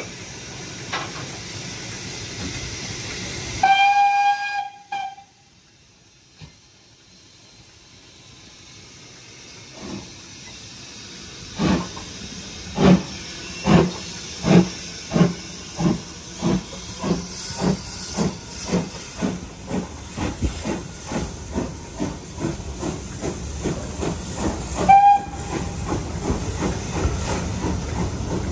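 Steam locomotive: steam hissing, then a whistle of about a second. After a lull it pulls away, its exhaust beats slow at first and steadily quickening, with a second short whistle near the end.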